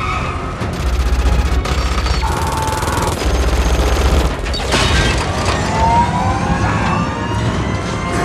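Action-film soundtrack mix of rapid heavy gunfire and booms under dramatic score, with rising whining tones about halfway through.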